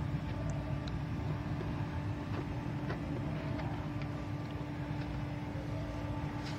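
Steady low rumble of distant traffic with a faint steady hum, and a few faint scattered clicks from kittens crunching dry kibble.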